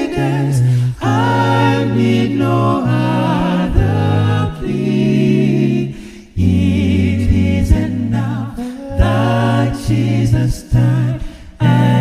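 Unaccompanied voices singing a gospel hymn in close harmony, with held chords and a low bass part. There is a short breath break about six seconds in.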